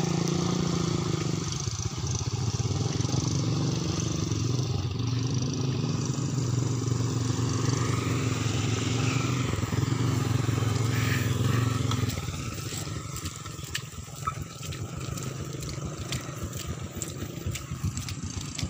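Small motorcycle engines running at low speed while riding through deep mud, a steady engine note. About twelve seconds in the engine sound drops away, leaving quieter scattered clicks and scrapes.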